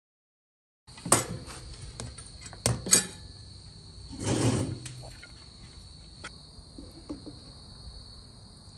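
After about a second of silence, crickets chirp steadily, with a few sharp clinks of a serving spoon and fork against plates and a pan, and a brief louder scrape about halfway through.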